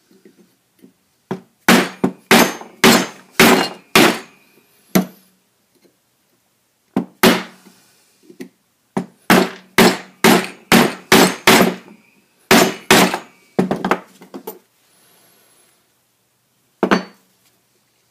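Hammer striking a metal electrical conduit end fitting to knock the cast piece free of the steel: about twenty sharp metallic blows in quick runs of several strikes, with short pauses between runs and a single last blow near the end.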